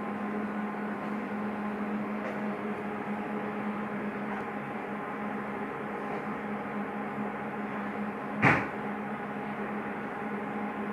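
Ultrasonic humidifier running with a steady electrical hum and the rush of its fan. One short sharp knock about eight and a half seconds in.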